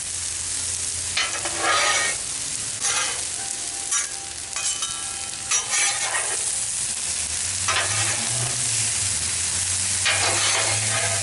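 Stir-fry sizzling on a Blackstone flat-top griddle, with a spatula scraping and stirring across the griddle surface in repeated strokes every second or two.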